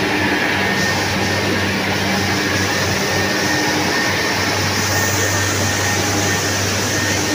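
Steady, loud din of sugar-mill cane-crushing machinery running: big electric motors and chain-and-sprocket drives, with a constant low hum and a faint high whine over the noise.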